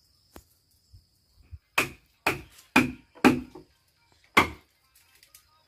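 Hand chisel being driven into dry timber to cut a house-post joint: a few light taps, then five hard wooden strikes about half a second apart.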